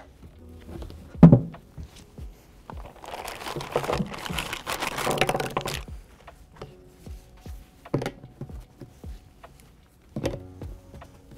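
Hard plastic hydroponic parts being handled and set down on a table: a sharp knock about a second in, crinkling plastic from about three to six seconds, and further knocks near eight and ten seconds.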